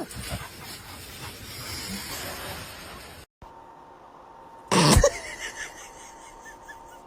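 A domestic animal, most likely a dog, makes one short, loud sound about five seconds in. Before it there is a steady hiss, and the audio cuts out briefly.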